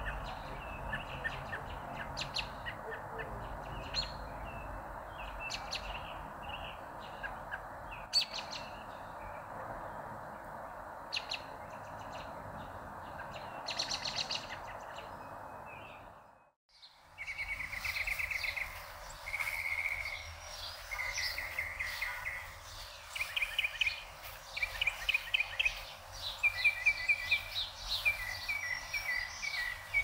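Songbirds chirping and singing over a steady background hiss. About sixteen seconds in the sound cuts out for a moment, and from then on the birdsong is louder and clearer, with rapid trills and quickly repeated chirps.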